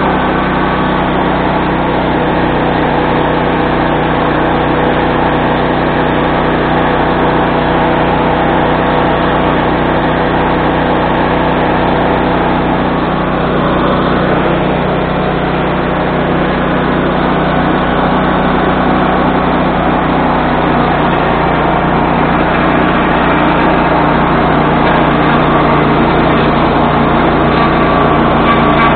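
SB1020 swing-blade sawmill's gas engine running steadily at working speed, with the saw head's mechanical noise over it. The engine note shifts slightly lower about two-thirds of the way through.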